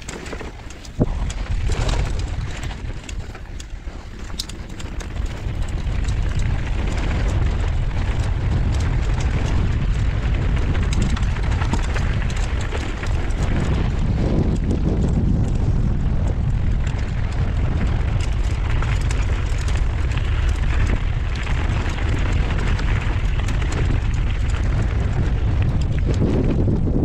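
Wind buffeting the action camera's microphone as a mountain bike descends a dirt and gravel trail at speed, mixed with the rumble and rattle of the tyres and bike over the rough ground. A sharp knock about a second in; the noise then builds over the next few seconds and stays steady and loud.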